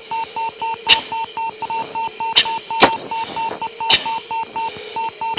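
T-38's G-limit warning tone beeping rapidly over the intercom, about five short beeps a second, the aircraft's warning that it is approaching excessive G during a sustained 5 G pull. Four sharp hisses of breath through the oxygen-mask microphone cut in over the beeps: the anti-G straining breathing.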